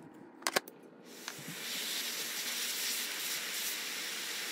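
A couple of small clicks, then a steady spraying hiss starting about a second in and lasting nearly four seconds before it cuts off abruptly.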